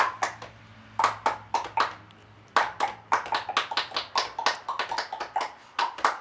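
Body percussion: rhythmic hand claps and slaps struck in quick patterns of about three to five a second, with two short breaks between phrases.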